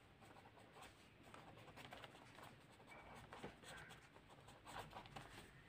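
Faint scratching of a ballpoint pen writing on paper: a string of short, quick pen strokes.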